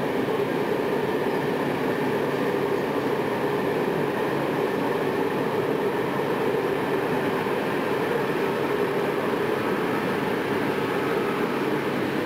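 Loco-hauled passenger coaches rolling past: a steady rumble of wheels on rail.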